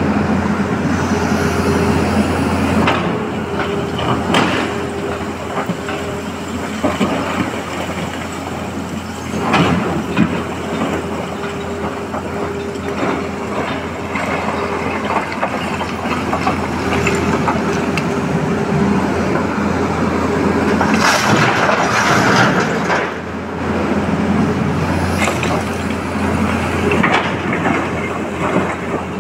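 Tata Hitachi crawler excavator's diesel engine running steadily under hydraulic load, with several loud clatters and bangs of rock as the bucket dumps boulders into a steel tipper bed and digs into a pile of broken quarry stone.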